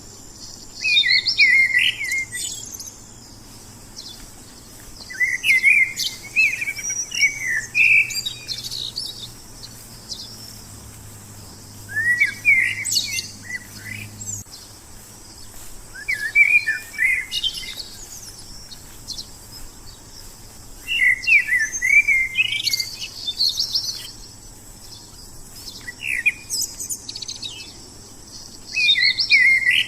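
A songbird singing short warbling, chirping phrases, repeated about every four to five seconds, over a faint steady high-pitched tone.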